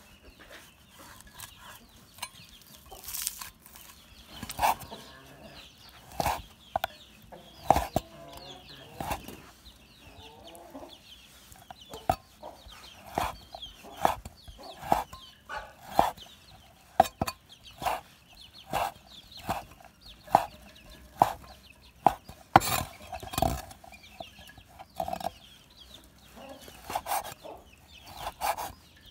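Chinese cleaver slicing dry-cured ham on a wooden chopping board, a sharp knock of the blade on the board every second or so, with chickens clucking in the background.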